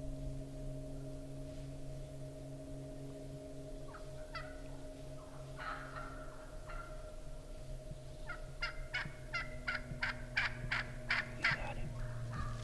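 Turkey yelping: a few scattered notes, then a run of about a dozen sharp yelps at three to four a second.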